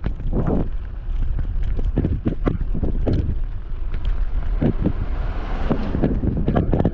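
Wind buffeting the microphone on a moving bicycle: a constant low rumble with irregular louder gusts about every second.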